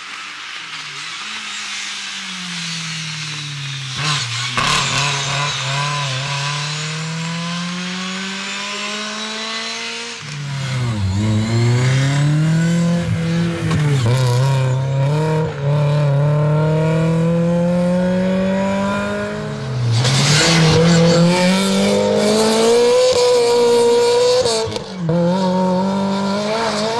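BMW 318is E36 rally car's four-cylinder engine driven hard. The revs climb and then drop back sharply again and again as it shifts and brakes.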